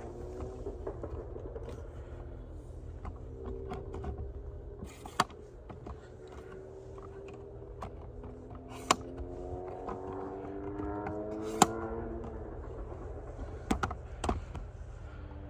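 Distant diesel locomotive horn sounding in long blasts, several notes together in a chord, over a low steady rumble. A few sharp clicks cut in over it.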